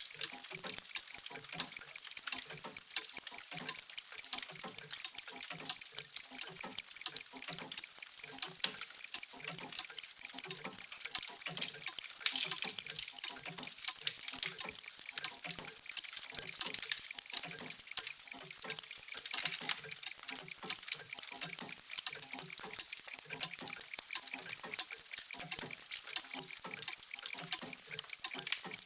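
Many mechanical clocks ticking at once: a dense, steady stream of overlapping ticks with softer low tocks among them.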